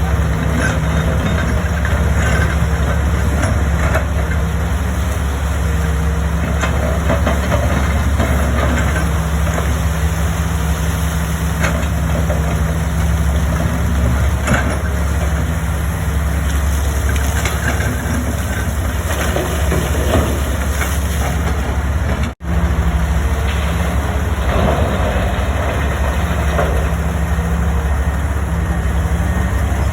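Heavy diesel engine of a large mining excavator running steadily as it works, with a constant low drone and an engine tone that comes and goes. The sound drops out for an instant about two-thirds of the way through.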